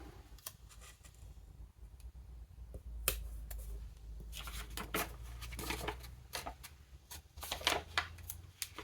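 Paper and sticker-sheet handling at a desk: a sharp click about three seconds in, then a run of short rustles and small taps as stickers are peeled and pressed onto planner pages.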